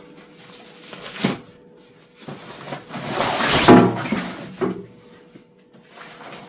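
Fabric carry bag being pulled off a folded metal-frame camping chair: rustling and scraping of the bag over the frame, loudest about three and a half seconds in, after a sharp click about a second in.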